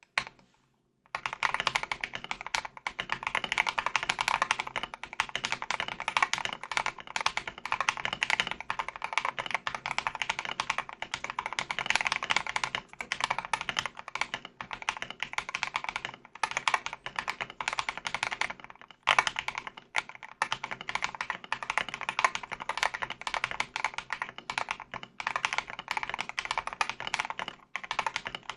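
Fast continuous typing on a mechanical keyboard: an Akko 5075S with lubed Akko CS Silver linear switches and PBT keycaps. It starts about a second in, with a few brief pauses.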